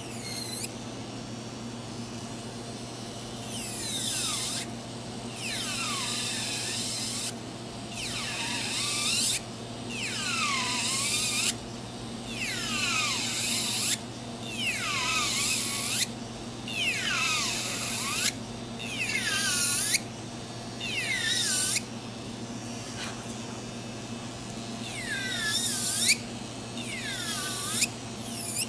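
Electric nail drill grinding gel off fingernails in over a dozen short passes. Each pass is a high whine that drops in pitch as the bit bites into the nail and rises again as it lifts off, with a steady low hum between passes.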